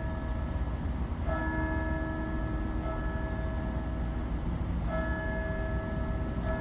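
Church bells ringing, struck about every one and a half to two seconds, each stroke ringing on with several pitches sounding together. A steady low rumble lies underneath.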